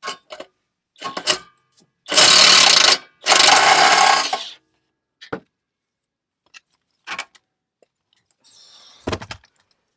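Impact wrench hammering in two bursts of about a second each on a rusted exhaust clamp bolt, with short clicks and knocks of tool and metal before and after.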